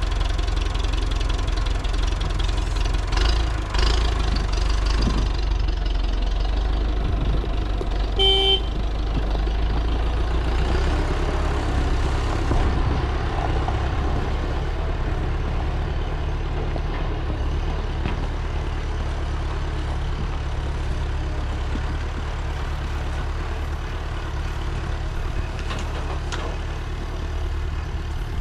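Motor vehicle engine running steadily with a low drone. A short horn toot sounds about eight seconds in.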